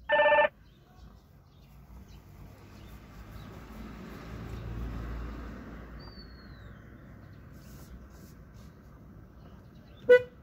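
An electronic ringing tone sounds once at the start, then a low, steady rumble of engine and road noise heard from inside a car, swelling and easing in the middle. A faint bird chirp comes about six seconds in, and a short, loud pitched beep, like a brief horn toot, near the end.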